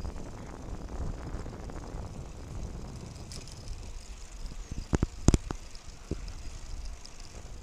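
Bicycle ride heard from the bike: steady rolling and rattling noise on a paved road, with a few sharp clicks about five seconds in.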